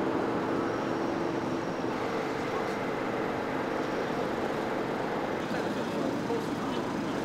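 Steady outdoor street noise of road traffic, with a low even hum.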